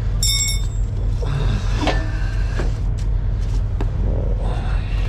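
Steady low drone of an idling engine, with a ringing metallic clink shortly after the start and a few light clicks of tools on metal.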